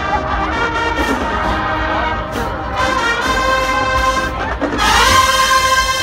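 Marching band brass section playing held chords, with a rising glide about five seconds in that swells into a louder sustained chord.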